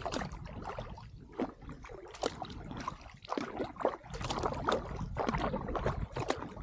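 Kayak paddle strokes and choppy waves splashing against the hull as a string of irregular splashes, over a steady low wind rumble on the microphone.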